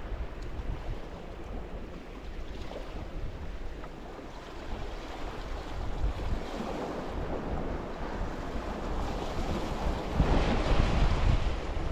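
Sea waves washing against a rocky shore, with wind buffeting the microphone in a low rumble. The wash swells midway and surges louder near the end.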